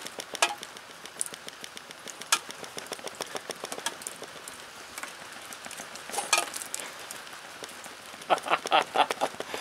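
Light rain pattering, heard as many small irregular ticks, with a few louder knocks.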